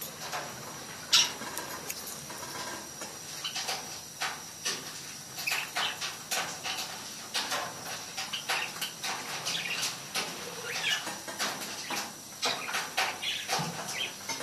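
Budgies bathing in water: rapid, irregular splashing and wing-flicking, with a few short chirps.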